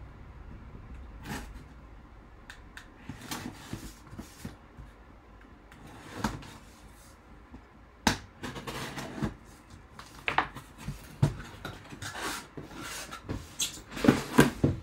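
A sealed cardboard box being handled and opened by hand: scattered scrapes, taps and rustles of cardboard and tape, busier and louder near the end as the top flaps are pulled open.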